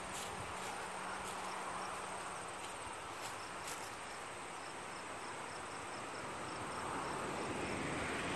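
Meadow insects singing: a steady, high hiss with a faint chirp repeating about three times a second.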